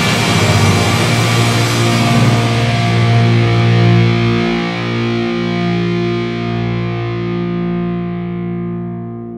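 Instrumental neoclassical heavy metal with distorted electric guitar. It plays densely for about four seconds, then settles on a held final chord that rings on and slowly fades.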